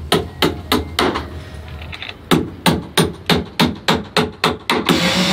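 Hand hammer striking in a steady rhythm, about three blows a second, in two runs with a pause between. Near the end a power drill starts up with a steady whir.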